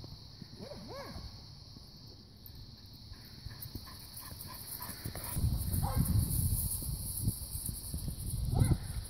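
Border collie barking: two quick barks about a second in and another near the end. A low rumbling noise comes in on the microphone from about halfway through.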